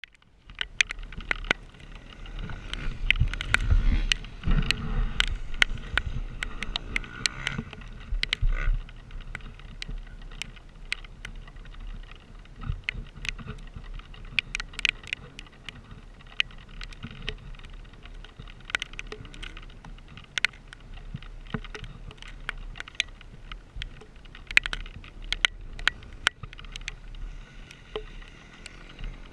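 Honda CRF450R's single-cylinder four-stroke engine running as the dirt bike is ridden at an easy pace, heard dull and low, with frequent sharp clicks and knocks over it. The engine is louder in the first nine seconds, then settles to a quieter steady run.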